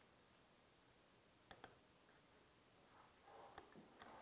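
Computer mouse clicks: a quick double click about a second and a half in, then two single clicks near the end, over faint room tone.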